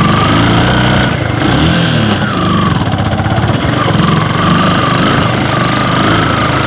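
Motorcycle engine running under load while climbing a steep, rutted dirt track, its revs rising and falling again and again as the throttle is worked.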